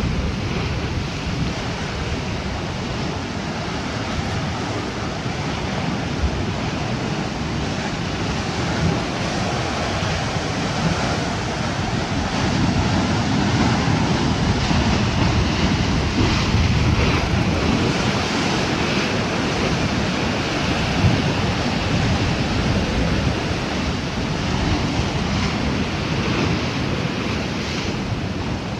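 Sea waves washing, with wind buffeting the microphone: a steady rush of noise that swells for several seconds around the middle.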